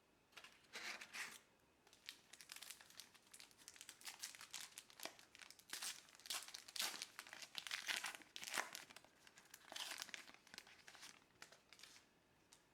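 Crinkling and tearing of a trading-card pack's wrapper being opened by hand, a run of short rustles that stops near the end.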